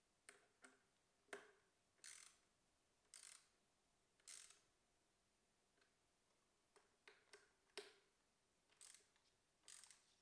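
Faint clicking of a small hand ratchet driver tightening the screws on an electric scooter's handlebar stem: short rasping runs of clicks with pauses between them, and a few sharper single clicks of the tool.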